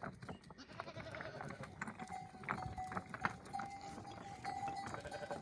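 Goats and sheep bleating, with a few sharp clanks among the calls.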